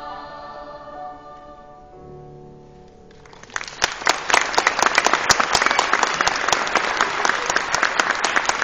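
A choir's final sung chord dies away, a lower chord lingers briefly, then the audience breaks into loud applause about three and a half seconds in.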